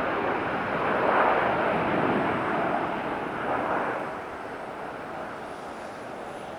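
Jet airliner engines running as the plane passes, a broad rushing sound that fades away after about four seconds.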